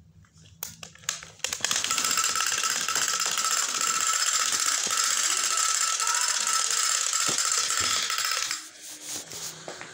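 A toy rattling continuously for about seven seconds, with a steady high whine running through it. It starts about one and a half seconds in and cuts off suddenly near the end, with scattered clicks before it.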